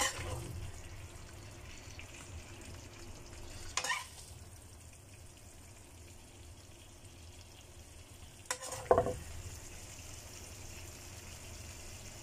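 Chili balado sauce sizzling faintly in a wok while sauce-coated eggs are spooned out onto a plate. A short utensil knock against the pan comes about four seconds in, and a louder scrape of the utensil comes about nine seconds in.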